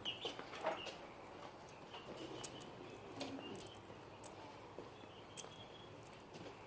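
Faint outdoor ambience: a few light clicks and rustles, with faint high chirping in the background.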